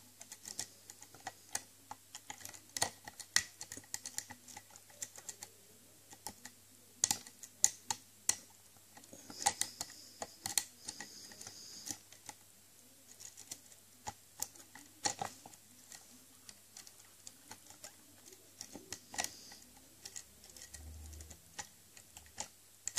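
Irregular small metallic clicks and scrapes of a Peterson Gem hook pick raking and lifting the pins of an ASEC six-pin rim cylinder, held under light tension with a pry-bar tension wrench. There is a brief stretch of faint scraping about ten seconds in.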